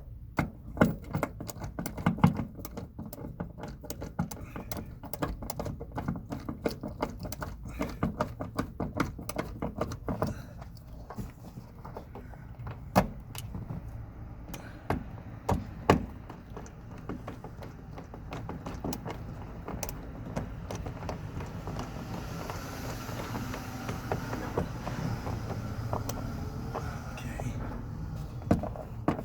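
Hand work inside a car: rapid clicking and rattling of tools and parts, with a few louder knocks.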